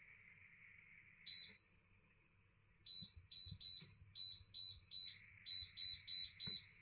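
Electric touch-control hob beeping as it is switched on: one short, high beep, then about a dozen quick beeps in short runs as the controls are pressed.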